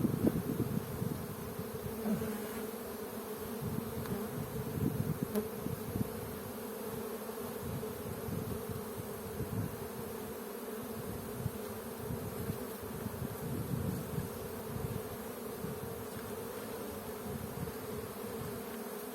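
A mass of honey bees buzzing at an opened hive, a steady droning hum. The beekeeper calls them a little angry after a night of rain.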